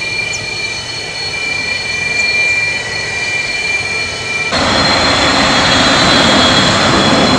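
Sukhoi Su-30 fighter's twin turbofan engines running as the jet taxis, a steady jet whine with high, even tones over the roar. About four and a half seconds in the sound abruptly gets louder and fuller.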